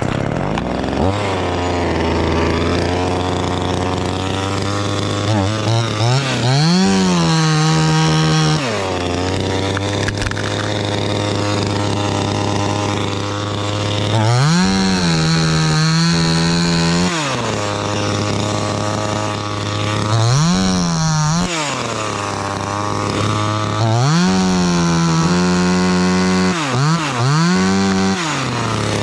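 Chainsaw engine starting up and idling, then revved to full throttle about five times, each for one to three seconds, as it cuts into the tree.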